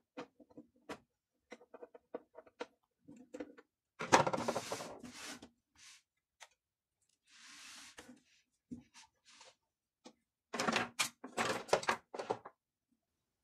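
A screwdriver turning small screws into the sheet-metal cover of a mini hi-fi system, a run of light clicks and ticks. After that come louder scraping and knocking as the unit is handled, and near the end a clatter of hand tools being set down on the table.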